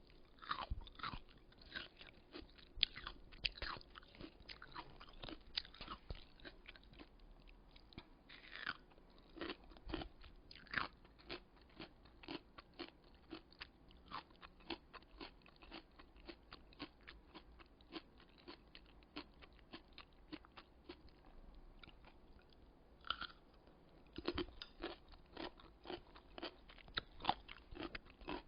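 Close-up chewing of kkakdugi, cubed radish kimchi: the firm, juicy radish crunches between the teeth in a quick run of crisp strokes. The crunching is lighter and more even in the middle and grows harder again near the end.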